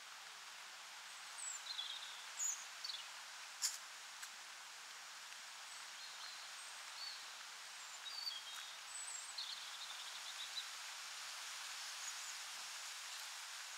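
Faint, steady outdoor wind hiss with rustling leaves, and short high bird chirps now and then, clustered around two to three seconds in and again from about eight to eleven seconds in. One sharp click about three and a half seconds in.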